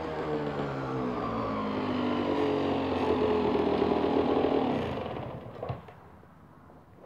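125 cc motorcycle engine running and getting louder as the bike rides up close, then shut off about five seconds in. A few short clicks follow.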